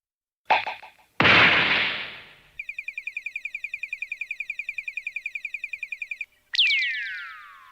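A string of comical anime sound effects: a short hit, then a loud noisy blast that fades over about a second, then a rapid high warbling trill of about ten pulses a second lasting over three seconds, and near the end a falling whistle-like glide.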